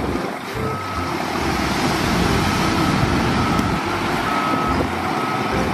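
Hyundai heavy dump truck's diesel engine running steadily as its bed tips up and the load of soil slides out the back, with a high beeper sounding on and off in short beeps.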